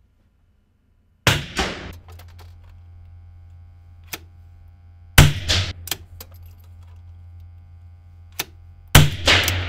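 Three shots from a .22 rimfire Anschütz biathlon rifle, about four seconds apart and ringing briefly in the range. Lighter metallic clicks from the rifle's bolt come between the shots, over a low steady hum.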